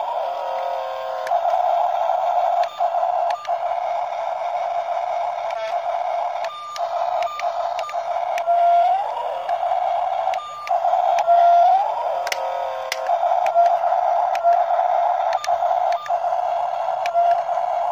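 Small electric gear motors of remote-control toy construction vehicles whining steadily, the pitch rising briefly several times as the motors speed up, with scattered plastic clicks.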